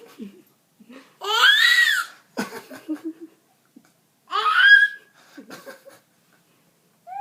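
Baby laughing, with two loud high-pitched squeals that rise and fall in pitch, one about a second in and one about four seconds in, and softer laughing sounds between them.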